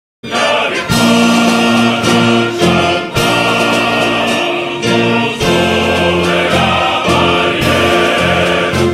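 Choral music: a choir singing held chords that change every second or so, starting abruptly just after the opening.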